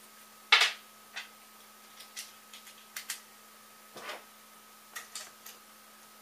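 Scattered sharp clicks and clinks of hand tools on small screw hardware as the printer bed's long screws and lock nuts are tightened, irregular, the loudest about half a second in.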